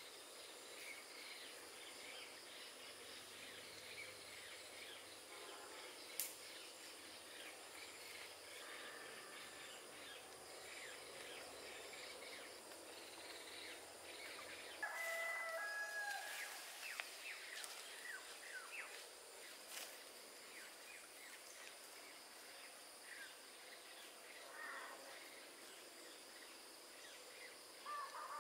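Faint rural ambience: scattered short bird chirps over a steady high hiss, with a louder, longer bird call about halfway through.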